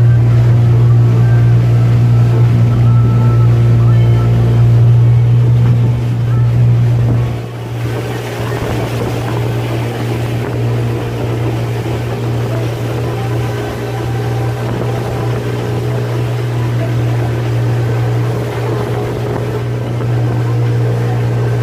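Motorboat engine running with a steady low hum, water and wind rushing past. About seven seconds in the engine gets a little quieter and the rushing of water and wind comes forward.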